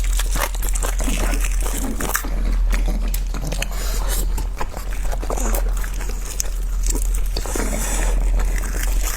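A person chewing and biting food close to the microphone, with many small irregular mouth clicks, over a steady low hum.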